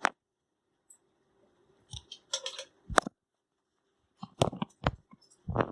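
A handful of short clicks and knocks, unevenly spaced, with near silence between them.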